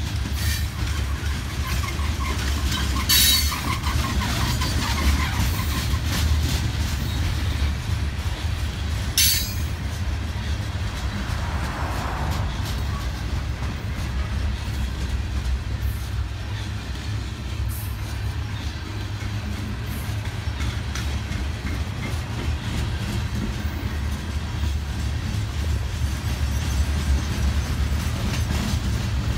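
Loaded ballast hopper cars of a freight train rolling past: a steady low rumble of steel wheels on rail with clickety-clack, and sharp bangs about 3 and 9 seconds in.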